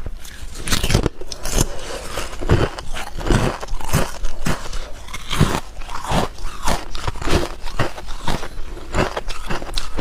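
Hard clear ice being bitten and chewed close to the microphone: a quick, irregular run of sharp crunches and cracks, several a second.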